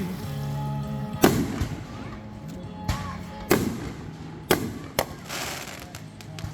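Fireworks going off: four sharp bangs, the loudest about a second in, some followed by a crackling spray.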